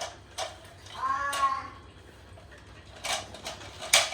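Hard plastic toilet parts being handled, giving several sharp clicks and knocks, the loudest near the start and again near the end. About a second in comes a short high cry that rises and falls.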